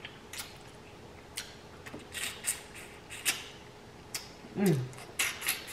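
Close-miked eating sounds: scattered wet mouth smacks and clicks while chewing food picked by hand from a seafood boil. About three-quarters of the way through comes a short falling vocal "mm", the loudest sound.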